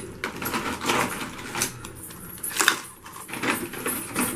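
Hard crab shells clattering and knocking against a metal cooking pan as the crabs are handled in the masala, in irregular clicks and clinks.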